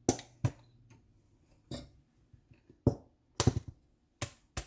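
A string of short, irregular clicks and clinks of a spoon and jar as Dijon mustard is opened and spooned into the sauce, about eight in all, a few coming in quick pairs after the middle.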